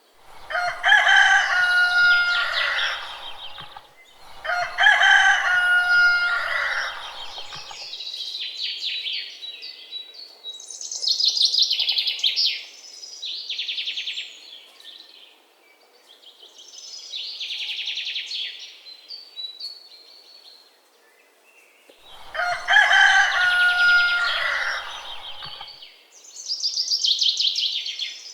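A rooster crowing three times, two long crows back to back at the start and a third past the middle. Between the crows, parakeets chatter in high-pitched bouts.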